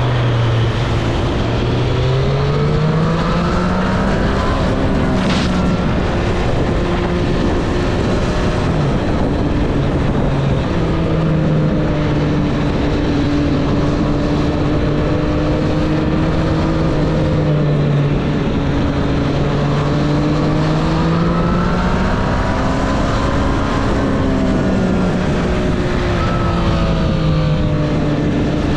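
Triumph Street Triple 765 RS inline three-cylinder engine under way, its pitch climbing and falling with the throttle. It revs up and drops back near the start, holds a steady cruise through the middle, then climbs and eases off again later on, over steady wind and road noise.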